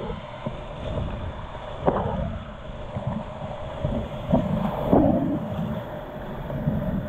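Rushing whitewater of a river in spate, heard from a kayak running the rapid, with low wind rumble on the microphone. Several splashes from paddle strokes and waves hitting the boat break through the rush, the loudest about five seconds in.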